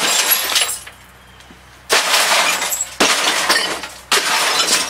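The screen glass of a Magnavox CRT television breaking as it is struck with a long bar. There are four loud crashes, each followed by about a second of shards falling.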